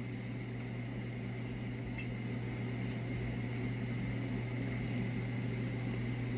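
Steady low mechanical hum of room noise, with a faint tick about two seconds in.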